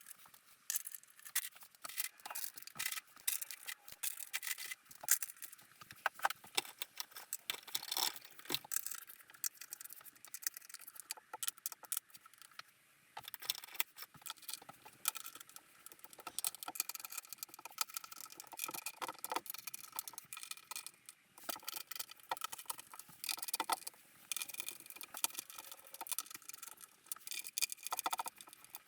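Irregular small metallic clicks and rattles of bolts and hand tools being handled while the two halves of an intake manifold are bolted together.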